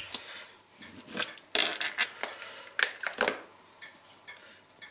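Liquid plant-based margarine squeezed from a plastic squeeze bottle into a pan: a handful of short, sputtering spurts and clicks, the loudest about a second and a half in and again about three seconds in.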